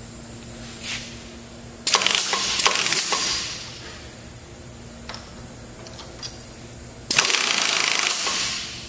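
Pneumatic power drawbar on the head of a Comet vertical milling machine firing twice, about five seconds apart: each time a second and a half of rapid air-impact hammering with a hiss of air. A few light clicks fall between the two.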